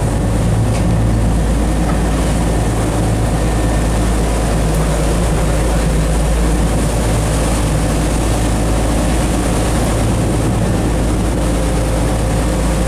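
A boat's engines running steadily at an even pitch, over a heavy, constant low rumble. It starts and stops abruptly, as at a cut.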